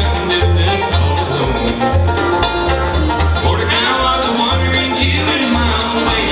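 Bluegrass band playing, with fast plucked string notes over a low bass line.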